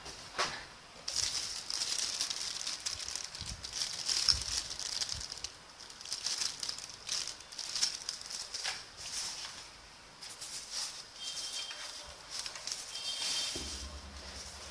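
Packaging being handled: irregular rustling and crinkling with scattered clicks and taps, as a boxed mechanical keyboard is unpacked.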